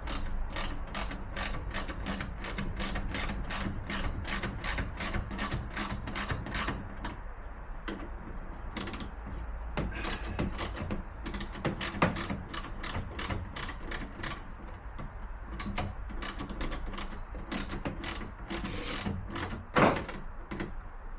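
Ratchet wrench clicking in quick regular strokes, about three clicks a second, as 10 mm screws holding a door speaker bracket are tightened. A sharper knock about twelve seconds in and a louder one near the end.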